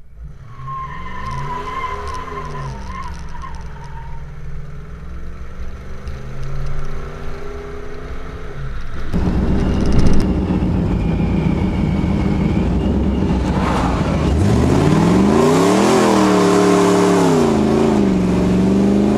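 Supercharged Pontiac Trans Am GTA V8 under way on the road, its engine climbing in revs and then dropping back twice as it pulls hard and shifts, running steadily between. From about halfway the sound is louder, with much more wind and road noise.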